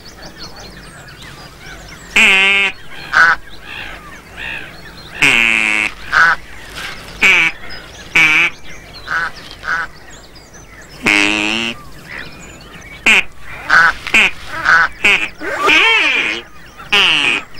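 Ducks quacking: an irregular series of separate calls, most short, a couple drawn out and wavering for about a second, over a low steady hiss.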